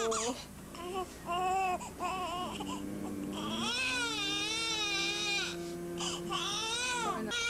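Newborn baby crying: a few short cries, then one long, wavering wail lasting several seconds in the second half.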